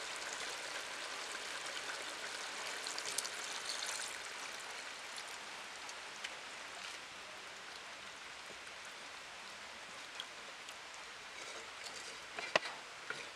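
Curry bubbling at a boil in a clay pot, a steady hiss of bursting bubbles that quietens after about four seconds. A sharp knock near the end as a metal ladle strikes the clay pot.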